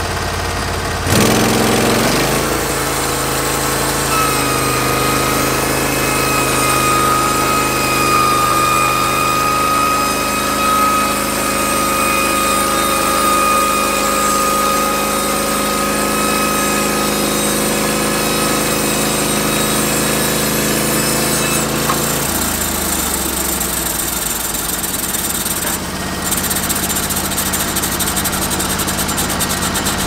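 Norwood LumberPro HD36 portable band sawmill: its engine revs up about a second in, then runs steadily under load while the band blade cuts through a white oak log with a steady high whine. About 22 seconds in the whine stops and the engine note drops as the cut ends.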